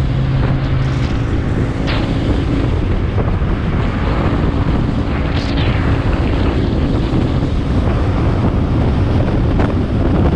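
Steady, loud wind noise buffeting the microphone of a camera moving at road speed, over the rush of traffic and tyres on the road.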